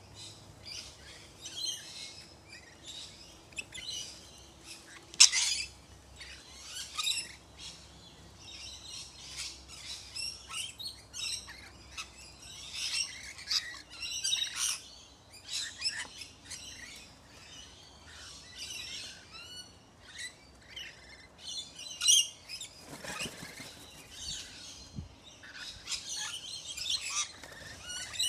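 Rainbow lorikeets chattering: a constant run of short, shrill calls, the loudest about five seconds in.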